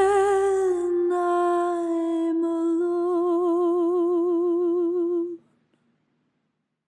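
A woman's voice holds one long final note of a jazz-pop ballad, slipping slightly lower about a second in, then swelling into a steady vibrato before it stops about five seconds in.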